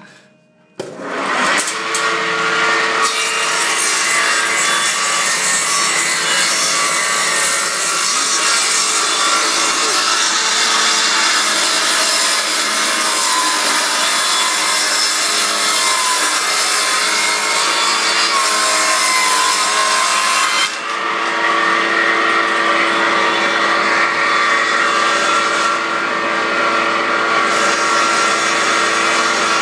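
A Novozybkov KS-200B household combination woodworking machine starts about a second in. Its electric motor and jointer cutterhead then run steadily while a board is fed through and planed. About two-thirds of the way through the sound dips briefly, then runs on with less hiss and a steadier hum.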